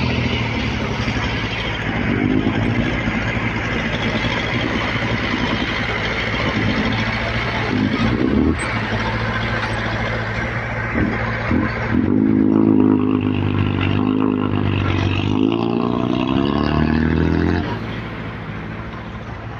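Diesel engine of a heavy dump truck running steadily, then revving harder in two surges in the second half before easing off near the end.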